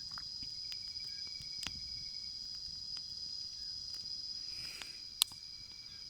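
Steady high-pitched insect chorus, like crickets, droning on without a break. A few sharp clicks cut through it, the loudest about five seconds in.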